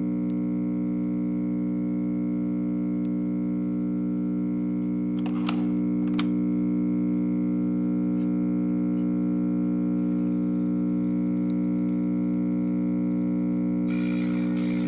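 A 1956 RCA Victor portable record player hums loudly and steadily through its speaker, a fault the owner says needs work. There are two clicks about five and six seconds in. Near the end, a scratchy noise starts as the needle is set on the record, but no music plays.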